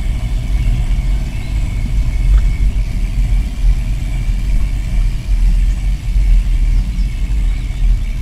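Wind buffeting the microphone of a camera riding on a moving bicycle: a loud, steady low rumble, with a faint steady high tone above it.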